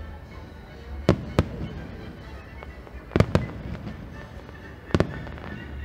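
Aerial fireworks shells bursting: two sharp bangs about a second in, another pair about three seconds in, and one more about five seconds in.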